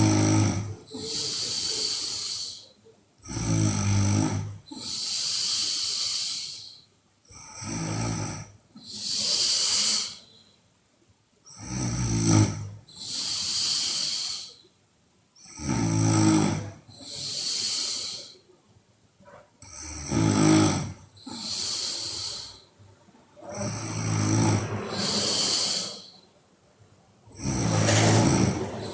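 A woman snoring loudly in deep sleep. Each breath is a low rattling snore followed by a longer hissing breath, repeating about every four seconds, seven times.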